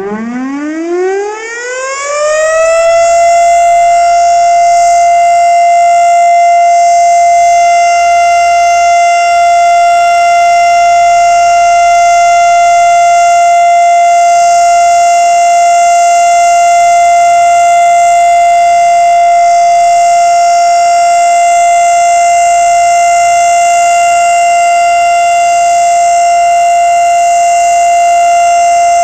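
Electromechanical outdoor warning siren spinning up, its pitch rising quickly over the first few seconds, then holding one loud steady tone.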